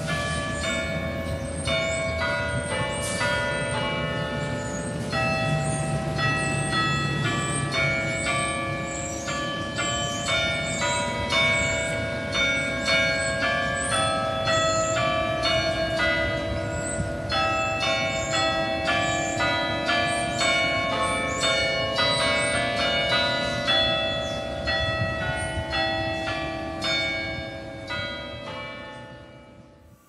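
The cathedral's chime of eleven church bells, played by hand, rings out a tune: single bells are struck one after another at changing pitches, about two to three notes a second, and each keeps ringing over the next. It fades out over the last few seconds.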